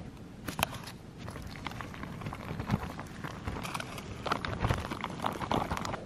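Dehydrated meal pouch crinkling and rustling as it is handled. Irregular crackles and clicks come thicker and louder from about two seconds in.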